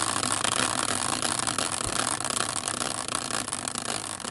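Prize wheel spinning, its pointer clicking rapidly against the pegs, the clatter slowly fading as the wheel winds down.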